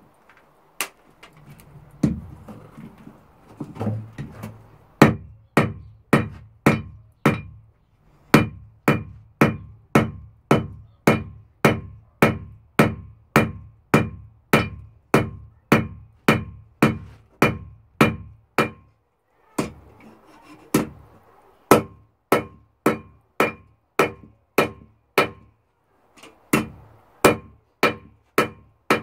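Hand hammer striking a red-hot steel bar on an anvil, about two blows a second, each blow with a short metallic ring from the anvil. After a few irregular knocks, the steady hammering breaks off briefly twice and then resumes.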